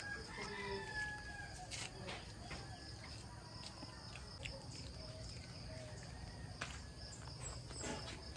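Faint outdoor ambience: a steady high insect drone, with faint bird calls and a rooster crowing near the start, and a few soft clicks.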